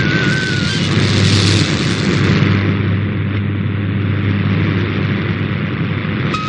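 Shortwave radio reception of a weak signal: loud static and hiss with a steady low buzz from local interference. A short run of stepping digital MFSK tones sounds in the first moment, then fades into the noise.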